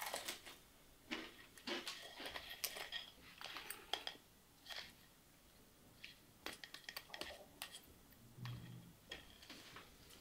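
Cutlery clinking and scraping on plates during eating: a string of faint, sharp clicks and clinks, some with a short ring. There is a soft low thump near the end.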